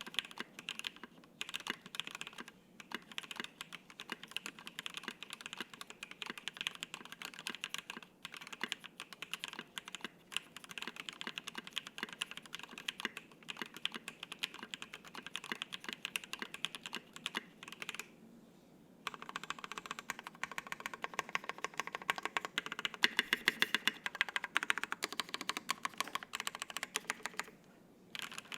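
Typing on a Matrix 8x v2.0 Additional mechanical keyboard with stock Water King switches on an FR-4 plate under PBT keycaps: a steady, rapid run of keystrokes. About two-thirds through, the typing stops for about a second, then resumes faster and louder, with a brief pause near the end.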